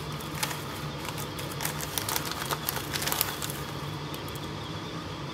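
Soup boiling in a frying pan on a gas burner: a steady hiss and low hum, with a run of sharp crackles over the first three seconds.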